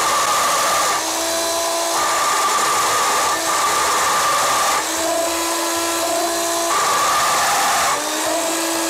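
Countersink bit chattering in a drill press as it cuts into a metal lathe way. It is a loud, harsh, ringing whine that sounds terrible, and its pitch flips between a higher and a lower tone several times. The drill press has a lot of wobble in its bushings.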